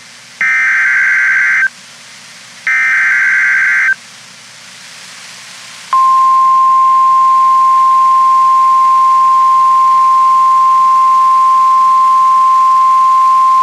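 Emergency Alert System activation on NOAA Weather Radio. First come two short SAME header data bursts, about a second apart. Then, about six seconds in, the single steady warning alarm tone starts and holds, signalling that a severe thunderstorm warning follows.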